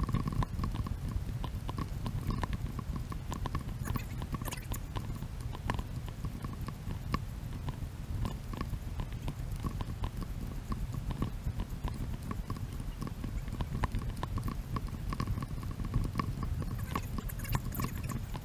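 Footsteps on a dirt trail: a quick, irregular run of scuffs and clicks over a low steady rumble.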